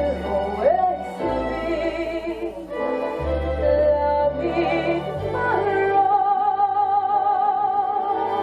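Music: a wavering, vibrato-laden melody over a low bass that changes note every second or two, with short repeated notes in between.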